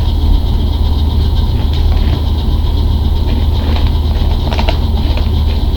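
A loud, steady low hum, with a few faint crunches of a wavy potato chip being chewed, the clearest one near the end.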